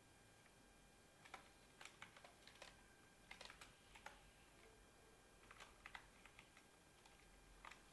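Faint computer keyboard typing: a quiet first second, then an irregular run of keystrokes.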